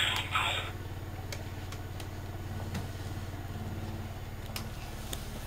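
A steady low mechanical hum with a fine, even pulse, broken by a few faint clicks. A brief voice-like sound trails off right at the start.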